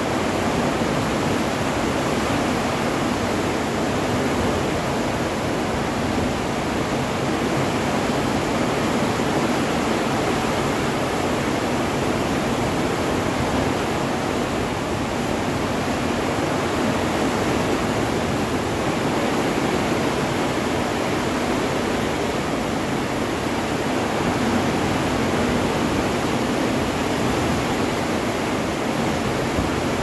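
Steady rush of a ship's foaming wake churning behind the stern.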